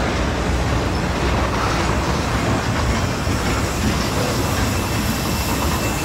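Norfolk Southern freight train's boxcars rolling past close by: a steady rumble and clatter of steel wheels on the rails. A thin, high wheel squeal comes in near the end.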